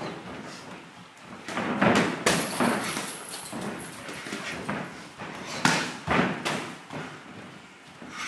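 Kickboxing bout in a ring: gloved punches and kicks landing, with feet shuffling and stamping on the canvas. A busy flurry of thuds comes early, and a few sharp, separate impacts come a little past halfway.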